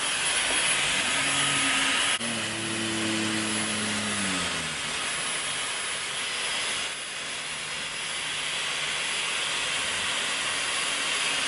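Dyson Airwrap styler running with its curling barrel attached: a steady rushing hiss of blown air as hair is wound onto the barrel. The level dips briefly about two seconds in and again around seven seconds.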